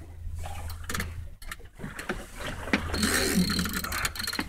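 Fishing reel whirring and ratcheting under load as the angler works a big fish, louder for about a second and a half near the end.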